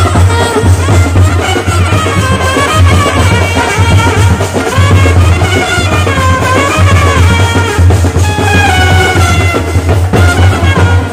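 Indian brass band playing a Hindi film-song tune instrumentally: brass horns carry a gliding melody over a steady beat of large bass drums.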